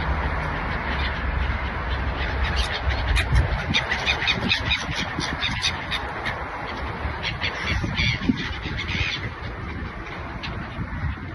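Gulls squawking, a flurry of short, sharp calls in two clusters, over a steady rushing background.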